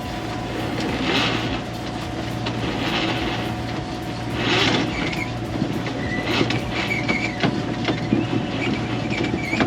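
A boat's engine runs steadily under water rushing past the hull in surges every second or two. Scattered sharp clicks come in during the second half.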